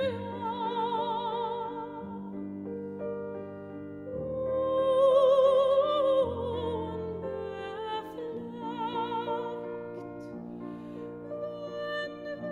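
Background music: a slow, opera-like classical piece with a held melody sung or played with a wide vibrato over sustained low chords, swelling louder about four to six seconds in.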